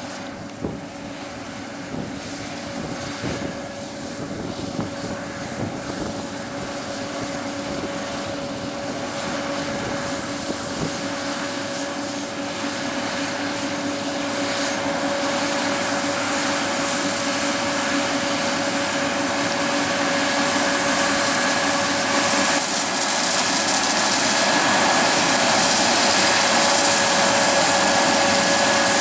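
Large diesel farm machine running with a steady whine, growing steadily louder as it comes closer.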